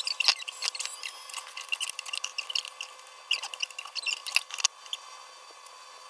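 Squeaky scraping and light clinks of a stainless steel wire-mesh strainer and bowl as ginger-sugar powder is sifted, in short irregular bursts that stop a little before five seconds in.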